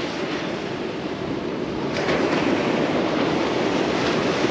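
Ocean surf washing up the beach, with wind on the microphone; the wash swells a little louder about two seconds in.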